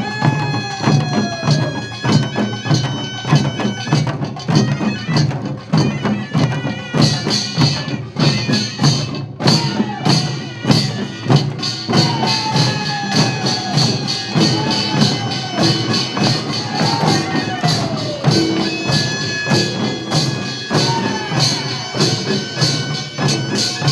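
Korean farmers' band music (pungmul): fast, dense percussion of clanging small gongs and drums, under a shrill reed horn playing held notes that fall away in downward slides.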